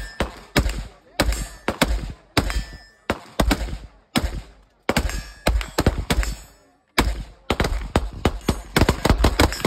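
Gunfire from several firearms shooting at the same time: sharp shots a few per second in an uneven rhythm. There are brief lulls about four and six seconds in, and the firing gets denser toward the end.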